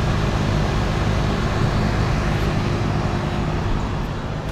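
Goodman central air conditioner condensing unit running: a steady hum of compressor and outdoor fan, with a thin steady tone above it that fades out near the end. The compressor is thought to be a rotary type.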